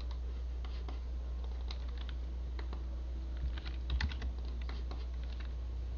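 Scattered clicks and taps of a computer keyboard and mouse, busier about three and a half to four and a half seconds in, over a steady low hum.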